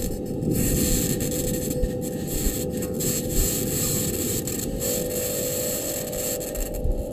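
Audio recorded on Mars by the Perseverance rover's microphone: a steady scraping, rumbling noise with a constant low hum, and a second, slightly higher hum joining a little under five seconds in.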